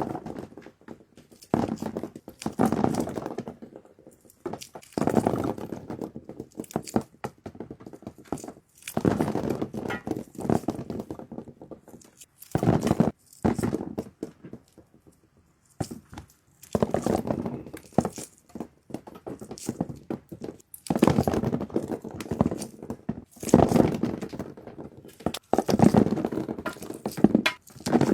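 Repeated bouts of handling noise: thuds and knocks mixed with crinkling and rustling, coming in bursts a second or two long with short pauses between them.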